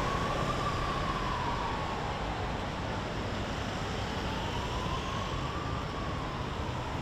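Street traffic noise with an emergency-vehicle siren wailing, its pitch sliding slowly down, back up and down again.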